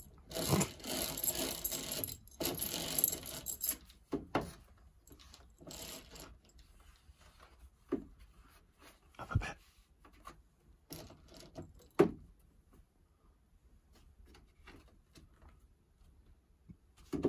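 Roller blind being closed: its metal bead chain rattles and the blind fabric rustles for the first few seconds, then a run of scattered clicks and knocks as the blind's bottom edge is handled and pressed against the window frame, with sharper knocks about halfway through and near the end.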